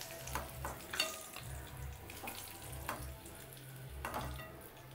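Hot oil sizzling in a steel kadai while fried boiled eggs are lifted out with a steel ladle. The ladle clinks against the pan about five times, over a steady low hum.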